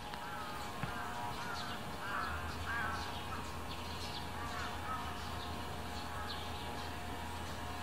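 Birds chirping and warbling in short repeated calls, with a steady low hum that comes in about two seconds in.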